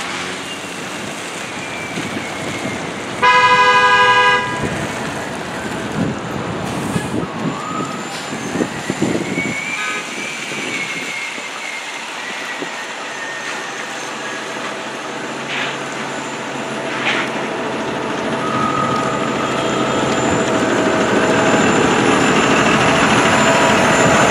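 City transit bus passing on a wet street, its engine running and its tyres hissing on the wet road. A vehicle horn sounds one toot of about a second, about three seconds in. The bus's engine noise grows louder near the end as it pulls away.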